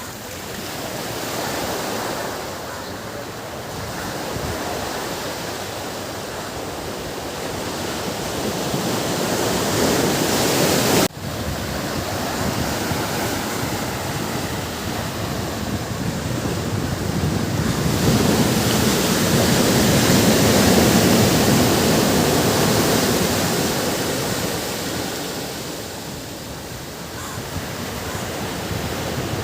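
Ocean surf breaking on a beach, an even rushing wash that swells and ebbs in slow waves, with a brief sudden break in the sound about a third of the way in.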